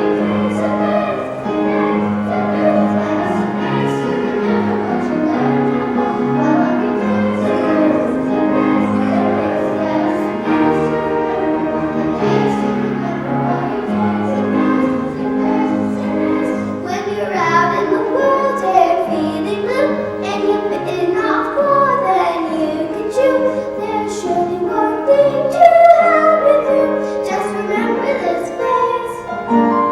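A children's choir singing a song with instrumental accompaniment. Steady held accompaniment notes carry the first half, and the singing voices come through more clearly from a little past halfway.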